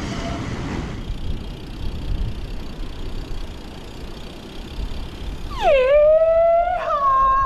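Wind rumbling on the microphone during riding, then near the end a loud, long howled 'whoo' from a rider's voice that swoops down, holds and climbs, jumping higher in pitch for its last half-second, sung out to test the echo in an enclosed passage.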